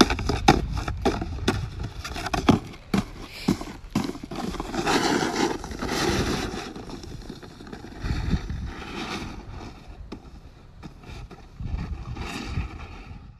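Snowboard knocking and scraping: a run of irregular knocks and clatters with longer stretches of scraping.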